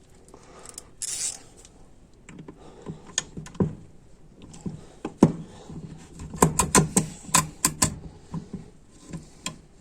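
Light metallic clicks and taps from small parts of an automatic transmission valve body being handled and worked by hand, with a quick run of clicks about six and a half to eight seconds in. There is a brief rushing noise about a second in.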